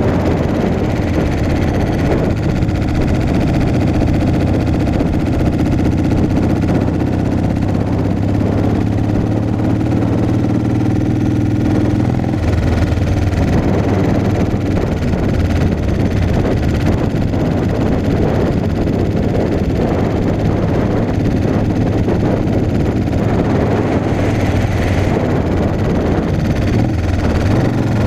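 Motorcycle engine running at cruising speed under wind rush on the mount-side microphone. The steady engine note loosens about twelve seconds in and settles steady again near the end.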